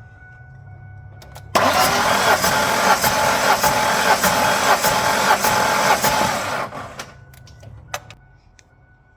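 1996 Ford Ranger engine being cranked over by its starter for about five seconds, with an even beat of about three pulses a second, without firing. This is a compression test on the number two cylinder, which shows no compression, a sign of a likely failed head gasket.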